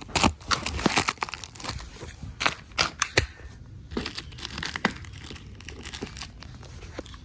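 Taped-up shipping packaging being torn open and crumpled, tape ripping and wrapping crinkling in irregular crackles and snaps, busiest in the first few seconds.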